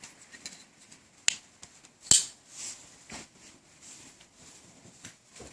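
Strider SMF folding knife being handled. There are scattered sharp metal clicks: a thin click about a second in, a louder one about two seconds in, and softer clicks and rustles after.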